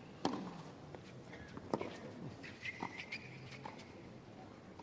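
Tennis ball being struck back and forth with rackets during a doubles rally: sharp pops roughly every second or so, the two loudest early on, over faint crowd background.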